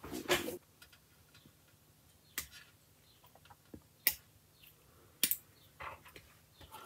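Side cutters snipping plastic parts off a model-kit sprue: three sharp clicks a second or so apart, after a brief rustle of handling at the start.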